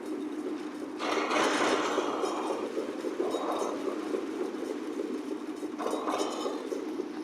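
Concrete mixer running: a steady motor hum under continuous gritty clattering and clinking, with louder surges about a second in and near the end.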